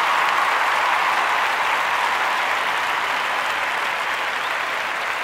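Crowd applause, an even clapping wash that slowly fades.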